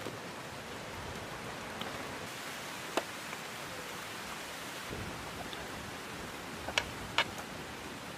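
Food being dished out of a cooking pot into plastic containers: three light clicks, likely a spoon or the containers knocking, one about three seconds in and two close together near the end, over a steady hiss.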